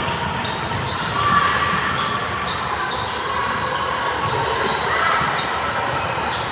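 Basketball bouncing on a hardwood gym floor during play, with players' and spectators' voices echoing in a large hall.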